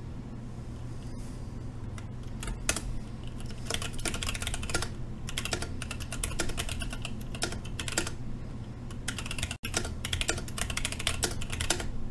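Typing on a Sentraq S60-X 60% mechanical keyboard fitted with Gateron Clear linear switches: a clatter of keystrokes, a few scattered ones at first, then fast continuous runs. A split-second gap breaks it about three quarters of the way through.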